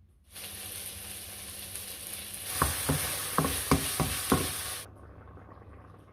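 Food sizzling in a hot frying pan while being stirred, with about six sharp knocks of the utensil against the pan. The sizzle grows louder about halfway through and stops suddenly.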